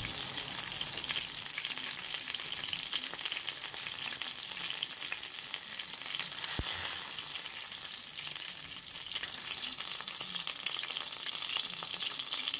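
Chicken thighs frying in hot oil in a pan: a steady sizzle thick with small crackles of spitting oil. A single sharp knock about halfway through.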